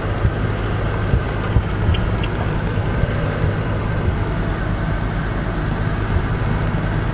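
Steady rumble of road and engine noise inside a moving car's cabin.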